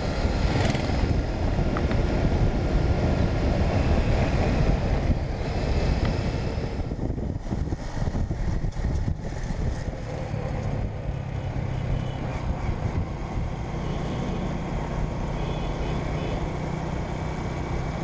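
Mahindra Centuro motorcycle on the move along a paved road: its engine running steadily under a heavy rumble of wind buffeting the microphone.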